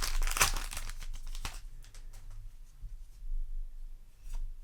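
A Yu-Gi-Oh! booster pack's foil wrapper crinkling as it is torn open, loudest in the first second and a half. After that come quieter rustles and a few soft ticks as the cards are handled.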